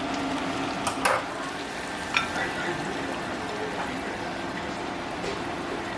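Food frying in a pan, a steady sizzle, with a few sharp utensil clicks about one and two seconds in.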